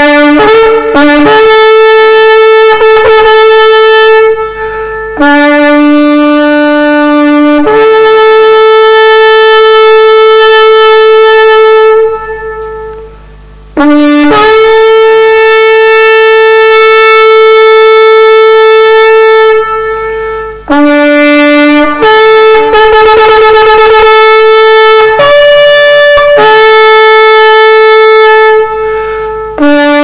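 Shofar blown in a series of blasts. Most start on a lower note and leap up to a higher one. Two are long held notes of about four and six seconds, and one near the end wavers quickly.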